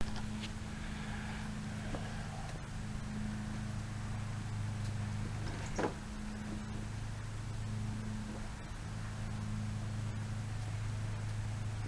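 Lawnboy mower's Tecumseh engine running at a steady speed, a low even hum, with a sharp click about six seconds in.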